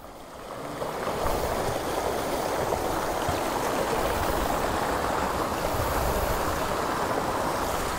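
Steady rushing of water from a small waterfall, coming up over the first second and then holding even.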